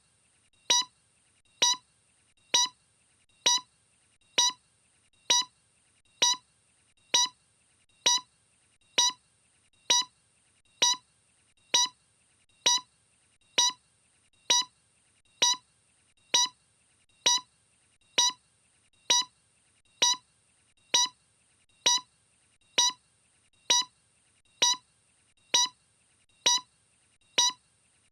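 Short, sharp ticks repeating evenly, a little faster than once a second, each with a brief pitched ring.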